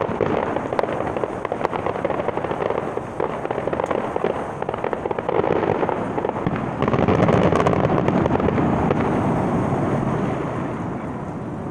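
Distant fireworks display going off: a rapid mix of crackles and bangs that swells about two-thirds of the way through, then dies down near the end.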